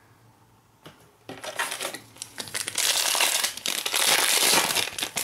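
Foil wrapper of a 2017-18 Panini Prizm Fast Break basketball card pack crinkling as it is torn open by hand. It starts about a second in after a single click, and grows louder toward the end.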